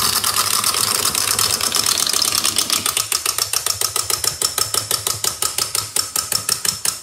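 Clockwork wind-up toy running, its mechanism whirring with rapid, even clicking, about seven clicks a second.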